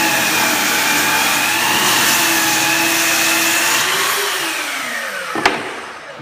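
Electric miter saw running at full speed as it cuts the angled end of a wooden stair tread, then winding down with a falling whine. A single sharp click comes about five and a half seconds in as it stops.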